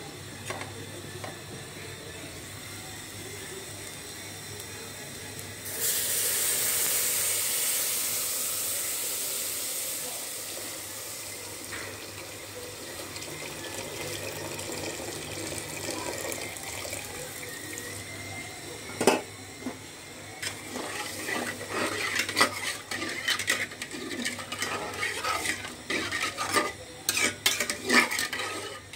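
Liquid poured into an aluminium cooking pot: a loud rushing splash starts suddenly about six seconds in and fades over several seconds. In the last ten seconds a metal spoon clinks and scrapes against the pot as the contents are stirred.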